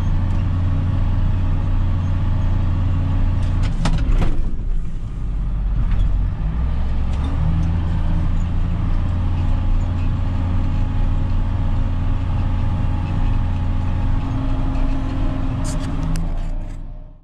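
John Deere tractor's diesel engine running steadily while pulling a lime spreader, heard from inside the cab. About four seconds in there are a few clicks and the engine note dips, then it settles a little lower about six seconds in. Near the end the sound fades down sharply.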